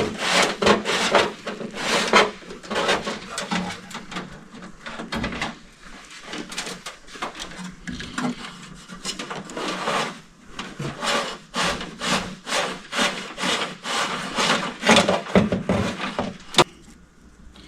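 Hands working a bundle of wires and tape: quick, irregular rasping and rubbing strokes, several a second, that die down near the end.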